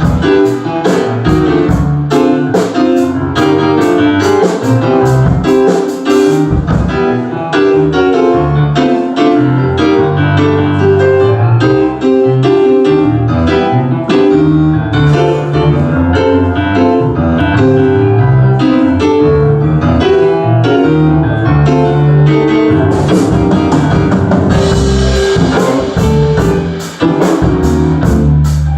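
Live band playing an instrumental stretch: a keyboard carries the lead over a drum kit keeping a steady beat, with no singing.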